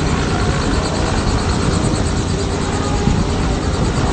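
Helicopter running close by, a loud steady rotor and turbine noise with a fast low pulsing.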